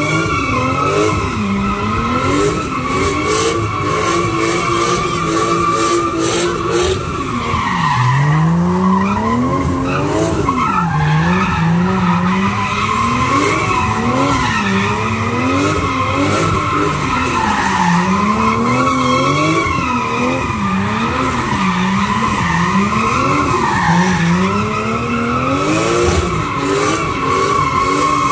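A drifting car's engine revving up and down every second or so, over a continuous screech of sliding tyres.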